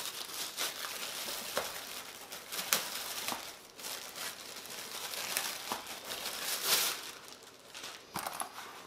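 Thin plastic packaging bag crinkling and rustling as it is handled and pulled open to get a soft carrying case out, with many quick sharp crackles.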